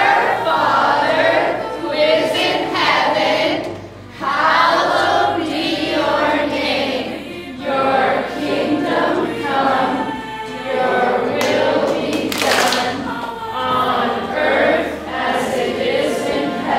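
A large group of children and teenagers singing a song together, led by a song leader.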